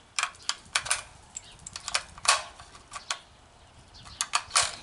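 .223 cartridges being thumbed one at a time into a rifle magazine, with irregular sharp metallic clicks as each round seats against the follower spring and the rounds scrape and tap together.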